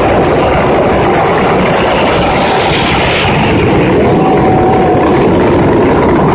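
Mascletà firecrackers (masclets) and aerial bangers exploding in a dense, unbroken barrage, the bangs so close together that they merge into one steady, loud din.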